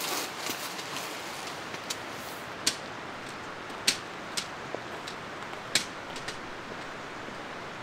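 Several sharp clicks and knocks at irregular intervals, over a steady hiss.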